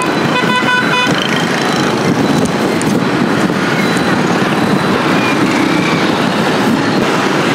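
Dense street traffic of motor scooters and cars passing close by, a steady mass of engine and road noise. A vehicle horn toots briefly about half a second in.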